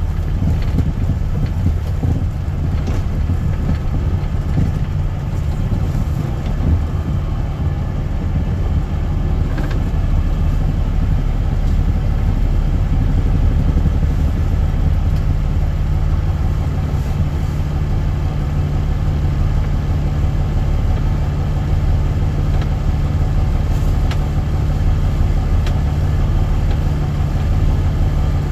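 Heavy truck's diesel engine running steadily, heard from inside the cab as a low, even engine note.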